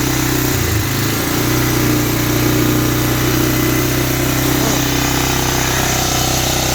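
1985 Honda Big Red 250ES single-cylinder four-stroke engine idling steadily on its freshly rebuilt carburetor; about half a second in the note briefly sags lower, then picks back up after about a second.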